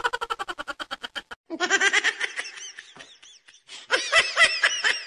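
High-pitched laughter in rapid ha-ha pulses, coming in three runs with short breaks between them. It starts abruptly from silence.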